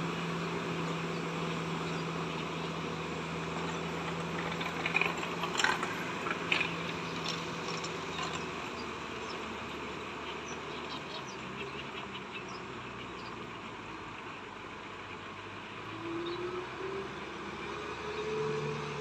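Kubota M6040SU tractor's diesel engine running steadily while its rotavator churns through flooded mud. The engine note fades about halfway through as the tractor moves off, and comes up again with a rising pitch near the end as the tractor turns. A few sharp chirps sound about five to seven seconds in.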